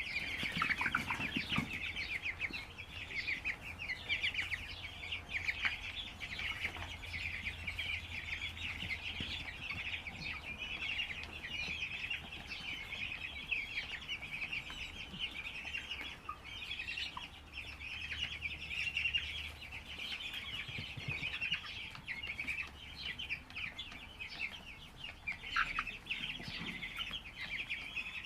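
A large flock of broiler chickens calling continuously, a dense chorus of many short overlapping chirps and peeps with no pause.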